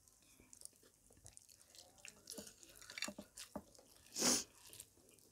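Close-miked eating by hand: scattered small wet clicks and smacks of rice and curry being mixed and chewed. About four seconds in comes one short, loud, hissing burst of breath-like noise.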